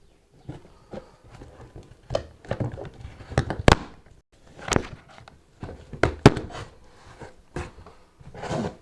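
Cardboard box and packaging being handled and opened by hand: scattered sharp knocks and clicks with short rustling, scraping bursts between them.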